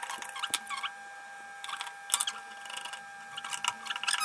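A cross-head screwdriver turning screws out of an induction cooker's plastic case: short clicks and squeaks in three bursts, about a second apart, with a faint steady whine underneath.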